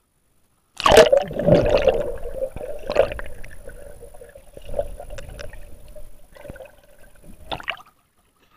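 An action camera in a waterproof housing plunges underwater with a sudden splash about a second in, then picks up muffled underwater water noise and gurgling with a steady hum, which cuts off suddenly as the camera surfaces near the end.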